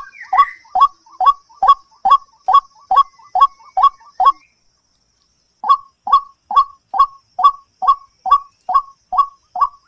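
Short animal calls repeated quickly and very evenly, about two to three a second, each one dropping in pitch; they stop for about a second a little past halfway, then resume at the same pace.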